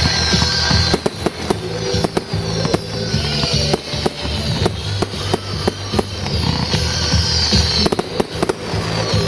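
Fireworks going off in quick succession, with many sharp bangs and crackles and repeated falling hissing streaks, over loud music with a steady low bass line.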